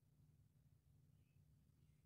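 Near silence: room tone with only a faint steady low hum.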